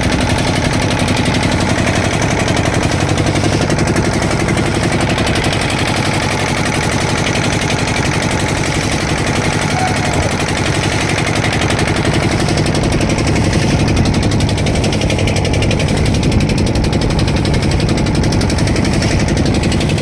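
Fishing boat's engine running steadily, a loud, rapid, even beat of knocks.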